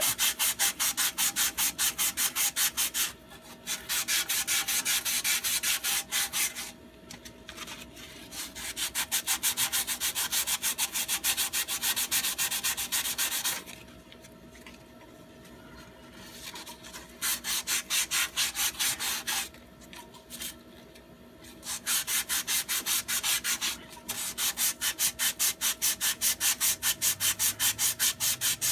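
Sandpaper rubbed by hand on an exhaust pipe, cleaning the pipe end so a new muffler can be fitted. It goes in quick back-and-forth strokes, in several runs of a few seconds each with short pauses between.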